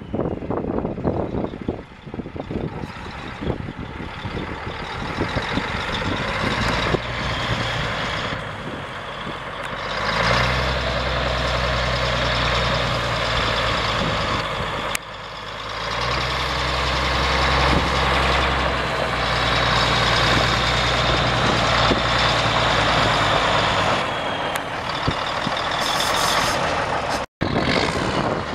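Diesel engine of a 1985 Mack MH613 semi tractor, a Mack ENDT676 672 ci inline-six turbo diesel, running as the truck is driven slowly around a gravel yard. The engine note strengthens about ten seconds in, dips briefly midway, then picks up again until shortly before the end. A thin steady high whine rides over it.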